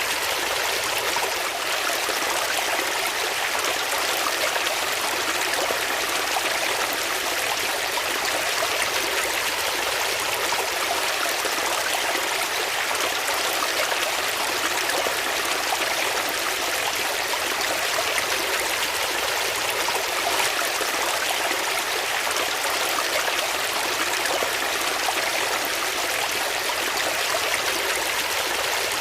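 Water flowing steadily: a continuous rushing and trickling with no breaks.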